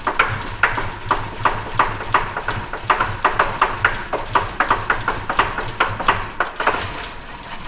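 Small-block Chevy V8 idling with a rapid, uneven tapping from the valve train. The owner takes the tapping for a lifter or rocker arm on one side, after a rocker arm broke and the valve lash was readjusted.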